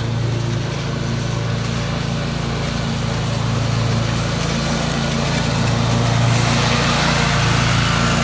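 Lawn mower engine running steadily under load while cutting long grass, the cutting noise growing louder in the second half as the mower comes closer.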